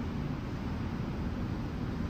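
Steady low rumbling background noise with a faint hiss over it, even throughout, with no distinct knocks or clanks.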